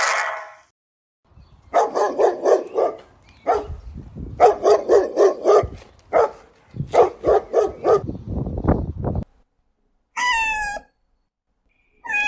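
A dog barking in quick runs of about five barks a second, several runs in a row. Near the end come two short high calls that fall in pitch.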